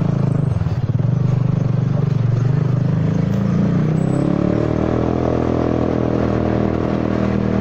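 Honda Forza 300 scooter's single-cylinder engine running under way, its pitch rising about four seconds in as it speeds up, then holding steady. The rider blames a faulty exhaust pipe for the bike running badly.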